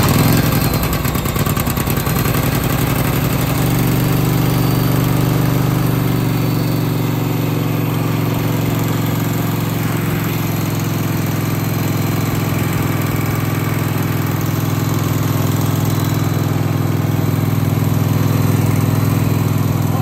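Wood-Mizer LT15 portable sawmill's air-cooled gasoline engine running steadily just after a cold start in below-freezing air, the first start of the day after sitting unused for two days.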